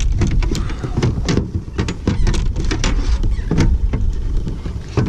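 Irregular knocks, clicks and rattles of gear and a fish being handled on a plastic fishing kayak, over a steady low rumble.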